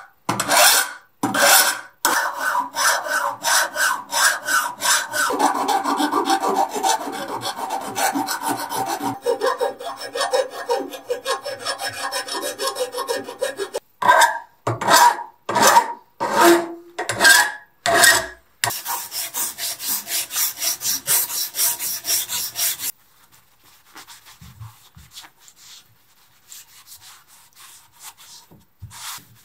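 Hand file rasping over the rusty steel arm of an old balance scale, taking off sharp edges: separate strokes at first, then a long run of quick strokes, then single strokes again. About two-thirds of the way in comes a few seconds of steady harsher hiss. Near the end there is only soft rubbing as the steel is wiped with a paper towel.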